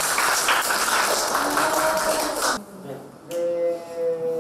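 A small group clapping and cheering, cutting off suddenly about two and a half seconds in; a voice with drawn-out tones follows near the end.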